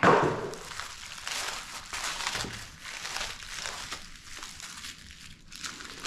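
Packaging crinkling and rustling as a small boxed kit is unpacked by hand, with a louder crackle right at the start.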